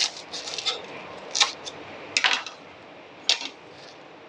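Chef's knife slicing through pandan leaves and knocking on a plastic cutting board: a few sharp chops at uneven intervals, with lighter taps between.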